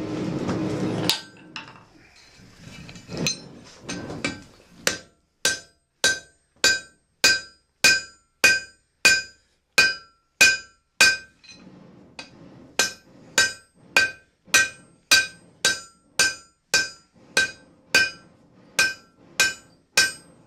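Blacksmith's hammer striking iron on an anvil while forging a rose head nail: a steady run of blows, roughly two a second, each with the same bright metallic ring, with a brief break a little past halfway. A rushing noise fills the first second before the hammering starts.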